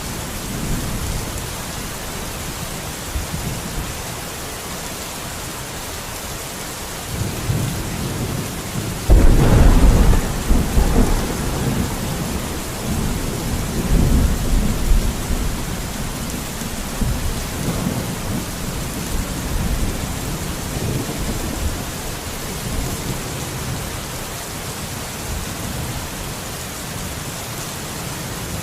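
Steady rain with a thunderstorm: a low rumble builds about seven seconds in, then a sudden loud thunderclap about nine seconds in rolls on for several seconds before dying back to the rain.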